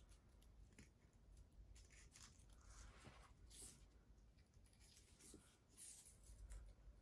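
Near silence with faint, scattered rustling: crepe paper and a thin floral wire being handled as a small paper flower piece is slid along the stem.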